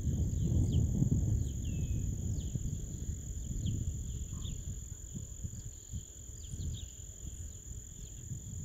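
Outdoor ambience of a low rumble and a steady high-pitched whine, with scattered short, high, down-slurred bird chirps throughout; one call about two seconds in trails off into a longer, steady note.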